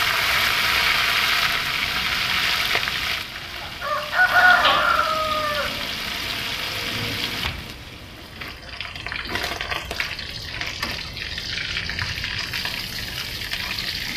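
Small whole fish frying in hot oil in a steel wok: a loud sizzle for the first three seconds, then a lower steady sizzle with scattered clicks of a spatula against the wok. About four seconds in, a rooster crows once, the loudest sound.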